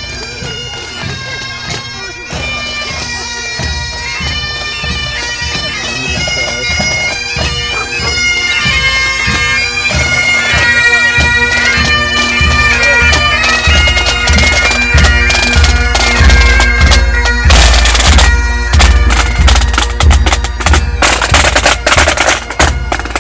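Pipe band playing: bagpipes carrying a melody over their steady drones, with drums beating a regular rhythm. It grows louder over the first half as the band approaches, and the drumming is loudest in the second half.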